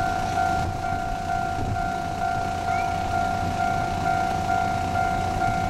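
A steady electronic warning tone pulsing evenly a few times a second, the loudest sound, over the low rumble of a Taiwan Railways DR1000-series diesel railcar approaching slowly on curved track.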